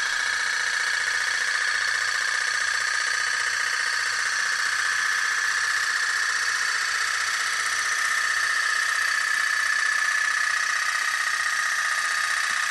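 Pop-pop toy steam boat running on water, its flame-heated boiler pulsing so fast it makes a steady high-pitched buzz.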